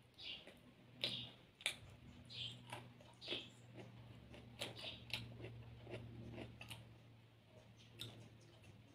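A person chewing food with the mouth close to the microphone: soft wet smacks and small clicks, with a couple of sharper clicks about a second in, over a low steady hum.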